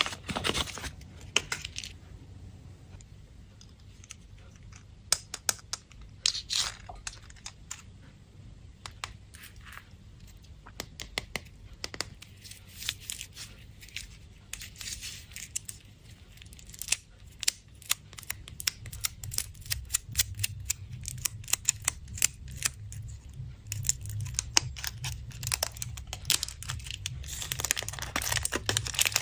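Foil candy wrappers, such as the foil on Kinder Surprise eggs, being crinkled and torn open by hand, with irregular small clicks and taps.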